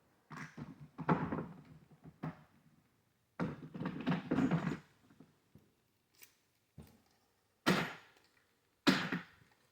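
Hand work on a small chainsaw's parts: short spells of rattling and scraping, then two sharp knocks about a second apart near the end.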